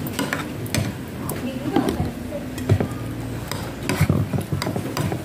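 Metal spoon clinking and scraping against a ceramic bowl while scooping thick chocolate rice porridge (champorado), with several sharp clinks spread through.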